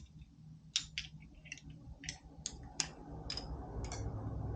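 A run of sharp, irregular metal clicks from a 6 mm Allen tool working a valve cover screw loose, about two or three a second, over a low background hum.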